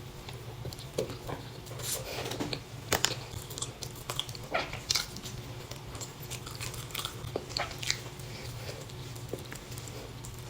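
A person chewing and biting into a pastry close to the microphone: irregular wet mouth clicks and smacks, over a low steady hum.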